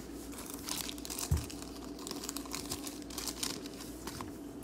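Thin plastic packaging of a pack of trading-card sleeves crinkling and crackling as it is handled, in quick irregular ticks, with one soft low thump about a second in.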